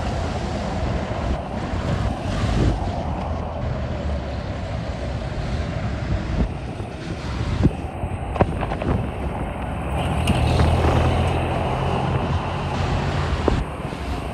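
Road traffic at a city intersection: engines and tyres of passing vans, trucks and cars, with wind buffeting the microphone. A deeper, heavier engine drone comes up about ten seconds in and drops away near the end, with a few sharp clicks along the way.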